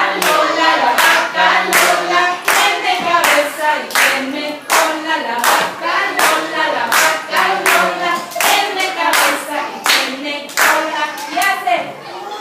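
A group singing a children's song together to steady hand-clapping, about two claps a second.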